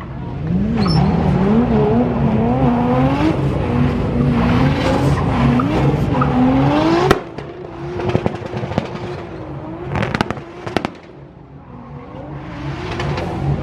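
Competition car's engine revving up and down in quick swings through a run, then dropping to a lower, quieter engine sound about seven seconds in, with a few sharp clicks.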